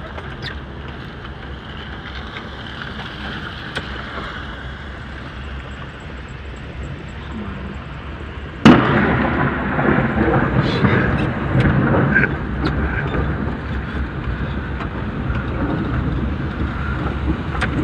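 Rain and road noise heard from inside a car cabin. About halfway through comes a sudden loud crack, and after it the noise stays louder and crackly to the end.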